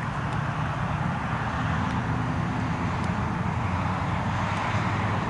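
Steady outdoor background noise with a low hum underneath, like distant traffic, and a few faint ticks.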